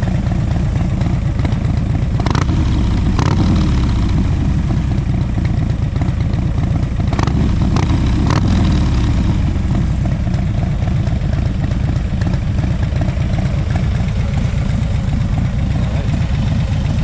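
Harley-Davidson Dyna Switchback's Twin Cam V-twin, fitted with a Stage 2 power cam, heard at its exhaust. It idles and revs up and back down twice, a couple of seconds in and again about halfway through.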